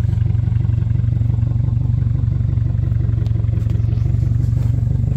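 A 2022 Subaru WRX with full bolt-on modifications idling, its turbocharged 2.4-litre flat-four giving a steady, even low exhaust note through the quad tips.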